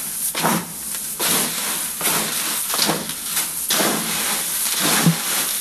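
Whole grain (wheat, barley, corn and sunflower seed) rustling and swishing as a hand stirs it around a galvanized metal tub, in repeated irregular strokes. The grain is being mixed whole, before grinding into poultry feed.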